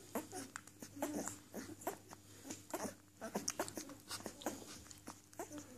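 Newborn puppies suckling at their mother's teats: many quick wet smacks and clicks, with a few faint squeaks.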